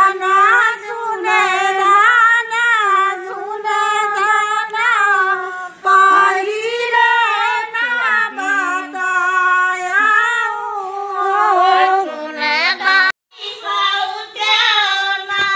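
Women singing a song together, unaccompanied. The singing stops abruptly about 13 seconds in and starts again a moment later.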